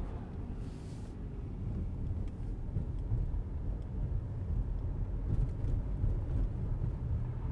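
Steady low rumble of road and engine noise heard inside a moving car's cabin, growing a little louder after a couple of seconds as the car picks up speed on the highway.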